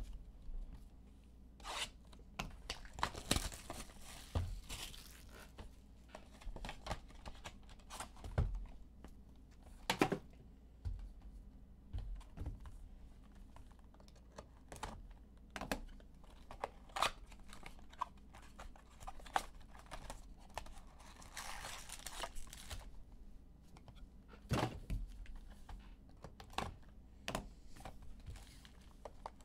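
Baseball card packaging being torn open and handled: wrappers ripping and crinkling, with scattered clicks and taps of packs and cards. There are longer stretches of tearing about three seconds in and again about three-quarters of the way through.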